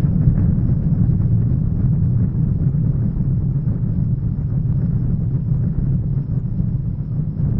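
Nuclear explosion sound effect: a steady, deep rolling rumble with a rough noise above it, no single blast or siren within it.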